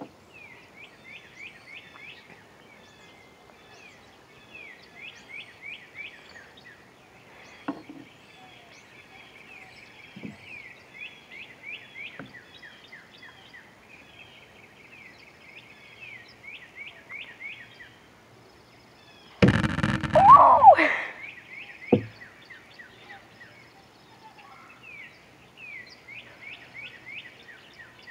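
A songbird singing over and over, each phrase a quick run of high descending chirps. A few light knocks are heard, and about two-thirds of the way in a loud, sudden noise lasting about a second and a half is followed by a sharp knock.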